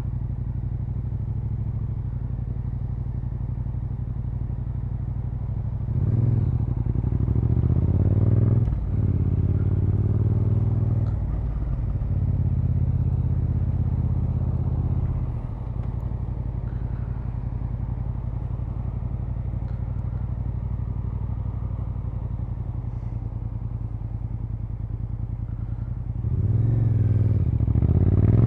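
Motorcycle engine idling steadily, then revving up and pulling away from about six seconds in, its pitch climbing and dropping at each of three upshifts before it settles to a steady run. Near the end it rises again as the bike accelerates.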